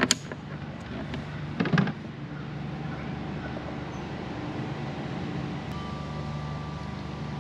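Folding plastic carry handle of a portable power station clicking as it is gripped, with a second short knock about two seconds in as the unit is tilted. A steady low hum runs underneath.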